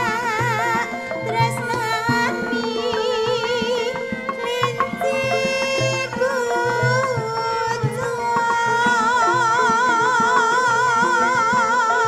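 Sinden, a Javanese female vocalist, singing long notes with wide vibrato over live gamelan accompaniment driven by a steady hand-drum beat.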